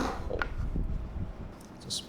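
Chair castor stem being pushed into its socket in the wheelbase: a sharp knock at the start, a smaller click, then handling and rubbing.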